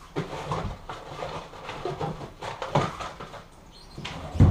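Irregular knocks, clunks and rustling of objects being handled and moved around on a workbench, with the loudest thump near the end.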